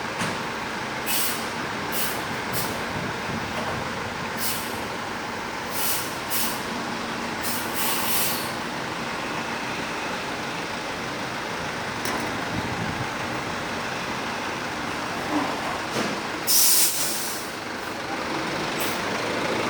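Bus running steadily, with repeated short hisses of its air brakes releasing air, the longest and loudest about three-quarters of the way through.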